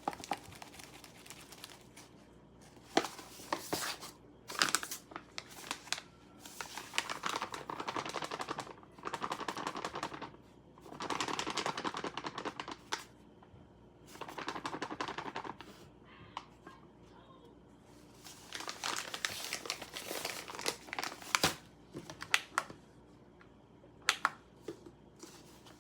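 Flour bag crinkling as flour is poured and scooped into a bowl on a kitchen scale, in rustling bursts of a second or two with scattered clicks and taps.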